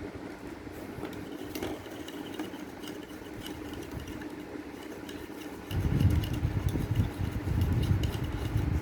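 A steady mechanical hum, joined about six seconds in by a louder, irregular low rumble.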